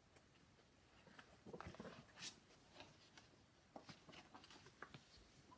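Faint rustling and soft clicks of a hardcover picture book's paper pages being handled and turned, loudest about a second and a half in.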